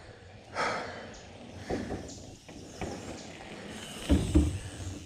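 Mountain bike tyres rolling over dirt and wooden ramps, louder about four seconds in as the bike passes close by.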